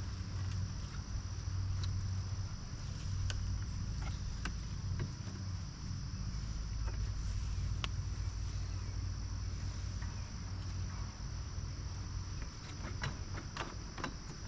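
Outdoor ambience: a steady high insect drone over a low steady hum, with scattered light clicks and rustles from the mower's fabric bagger and its fittings being handled, more of them near the end.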